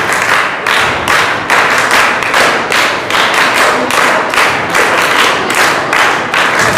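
An audience clapping in a steady rhythm, about two claps a second.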